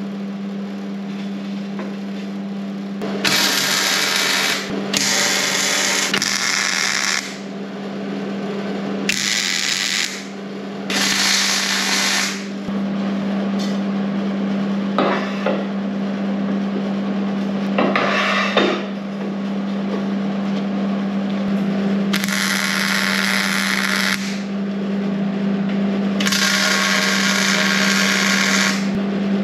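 Wire-feed (MIG) welding on a steel table frame: several separate runs of crackling, hissing arc, each lasting one to three seconds, over a steady hum. A few sharp metal knocks from steel tubing being handled fall between the welds.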